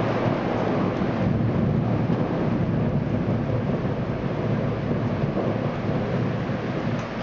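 Thunder rolling on for several seconds over steady rain, fading near the end.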